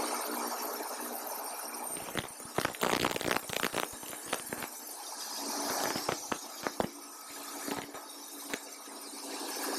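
An engine running steadily with a low hum, over which comes a run of sharp knocks and clatter about two to four seconds in, then a few more knocks a little later.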